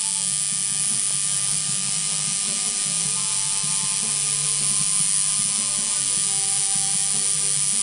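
Tattoo machine buzzing steadily while its needle works ink into skin.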